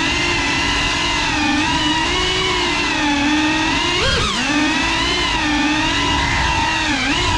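Cinewhoop drone's brushless motors and ducted propellers whining steadily in flight. The pitch wavers with the throttle, with a quick rise and fall about four seconds in.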